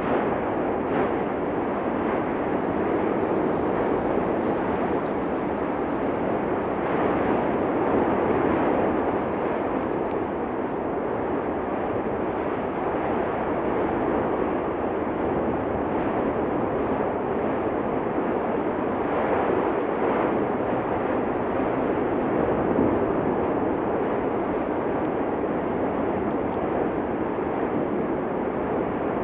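Cumbre Vieja volcano erupting: a loud, steady roar that swells slightly now and then.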